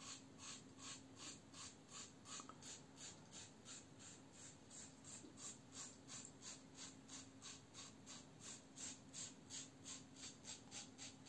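Muhle R89 safety razor with a Treet Platinum blade scraping through lathered stubble on the chin in short quick strokes, about three to four a second, a faint rhythmic rasp of the blade cutting whiskers, which the shaver calls a lot of feedback.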